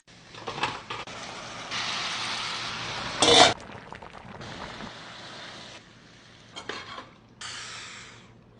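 Pork frying in oil in a pan, sizzling while it is stirred, with a few clicks of the utensil. The sizzle cuts in and out several times, with one short louder burst about three seconds in.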